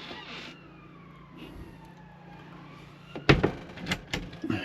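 A faint siren gliding slowly in pitch, then two or three sharp knocks or clicks of a door or latch inside the van, starting about three seconds in.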